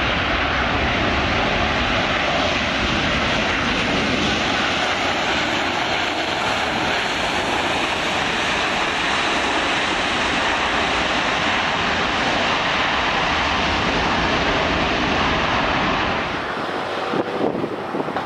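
Airbus A330-300 with Rolls-Royce Trent 700 engines, a loud steady jet roar as it rolls down the runway under takeoff power. About sixteen seconds in the roar cuts off, leaving quieter wind buffeting on the microphone.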